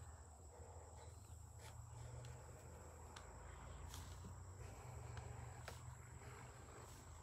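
Very quiet: faint scratching of a felt-tip marker drawing lines on tracing paper, with a few soft ticks over a low steady hum.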